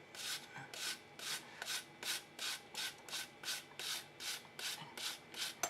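An apple slice being rubbed up and down over a grater, shredding it, in a steady rasping rhythm of about three strokes a second.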